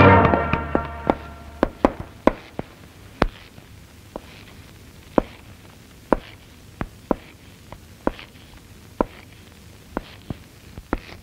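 Music fading out in the first second, then a series of sharp, single taps spaced unevenly, one or two a second, over a quiet background: a suspense sound effect in an old film soundtrack.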